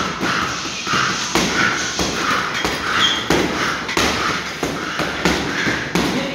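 Boxing gloves punching hanging heavy bags in a fast, uneven series of thuds.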